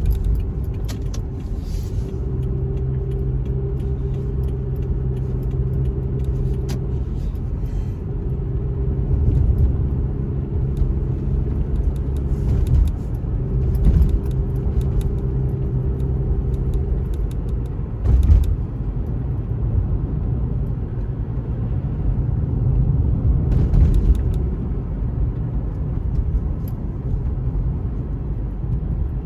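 Car interior noise while driving at town speeds: a steady low rumble of engine and tyres with a humming engine note, broken by a few brief knocks and rattles.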